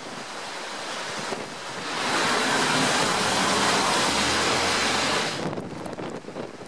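Storm wind gusting and buffeting the microphone with a rushing noise; a strong gust swells about two seconds in and eases off after about five seconds.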